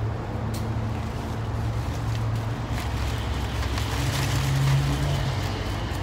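A low, steady engine hum, like a motor vehicle running nearby, that grows louder about four seconds in. Rustling and cutting at the banana bunch's stalk sit on top of it.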